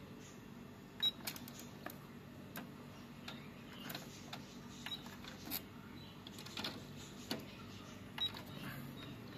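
Irregular light clicks, roughly one a second, from the buttons and lid of a Victor UX-Z11WMD micro component MD stereo being pressed and handled, over a faint low hum.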